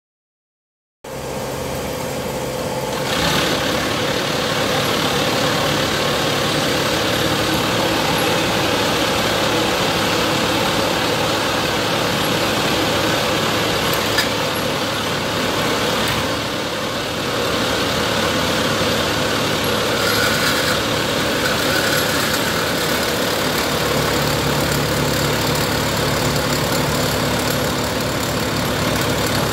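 Rotary swaging machine running with a steady, loud mechanical drone, swaging an aluminium heat-transfer tube fed into it by hand. The sound starts abruptly about a second in.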